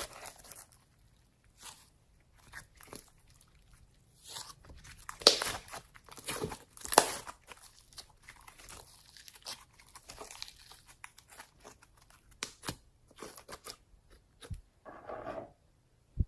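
Slime squeezed and worked by hand, making irregular crackling and crunching sounds, with louder crunches about five and seven seconds in.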